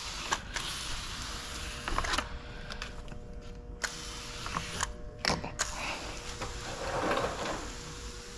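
Hiss of water being sprayed while washing out a car door window, in stretches with short breaks, mixed with a few light clicks and knocks of handling.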